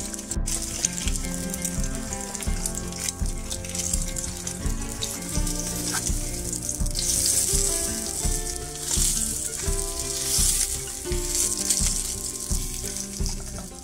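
Egg frying in hot oil in a nonstick frying pan, a steady sizzle that gets louder about halfway through.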